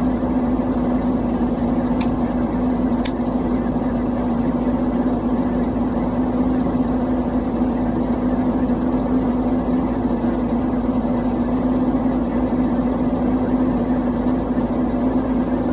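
A steady droning hum at an even level, with two faint sharp clicks about two and three seconds in.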